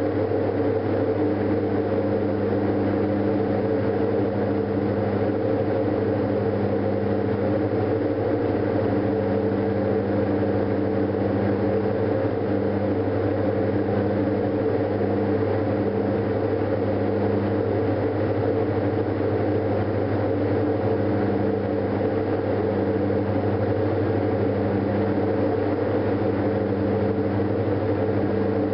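Diamond DA42 Twinstar's twin engines and propellers droning steadily in cruise, heard from inside the cabin: a constant low hum with a slow waver in its tone.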